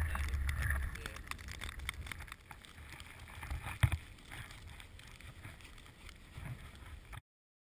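Wind rumbling on the camera microphone, fading after about a second, then faint clicks and scuffs of a snowboarder strapping into the bindings, with one sharper click a little under four seconds in. The sound cuts off shortly before the end.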